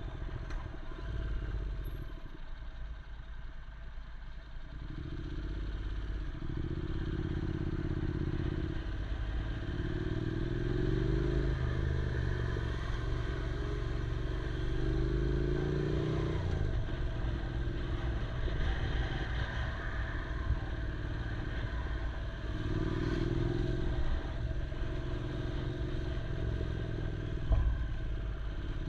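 Yamaha R6 inline-four motorcycle engine running under way. Its pitch climbs with the revs and drops back several times, as at gear changes, over a steady low rumble. A single sharp knock comes near the end.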